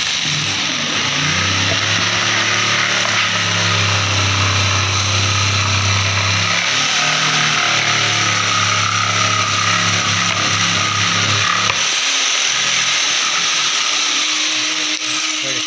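Woodworking machinery running steadily in a plywood workshop: a loud, even machine noise with a low hum underneath that fades out about three-quarters of the way through.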